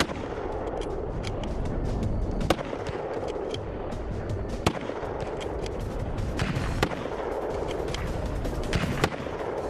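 Rifle gunfire over steady background music: four sharp shots roughly two seconds apart, with fainter scattered shots between them.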